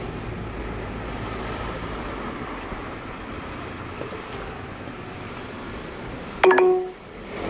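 Steady road and engine noise heard from inside a slowly moving car. Near the end comes a single short, loud beep lasting about half a second.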